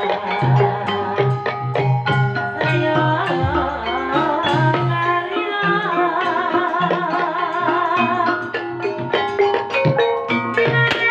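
Javanese ebeg (kuda kepang) gamelan music: quick drum strokes over struck metallophones and low gong-like tones, with a wavering, vibrato-laden melodic line about two-thirds of the way through.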